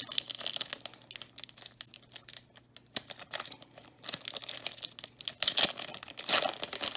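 Wrapper of an NFL Five trading-card pack crinkling and being torn open by hand, in louder bursts near the start, about four seconds in and again near the end.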